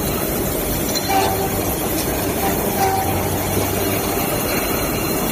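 CNC grinding and deburring machine working on die-cast metal parts: a steady, loud grinding rush with a couple of brief squeals.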